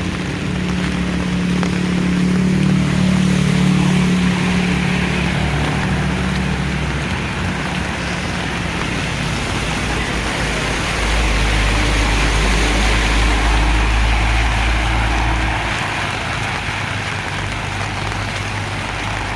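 Heavy rain falling steadily while motor vehicles pass: one engine over the first several seconds, then a deeper-running engine from about eleven to sixteen seconds in.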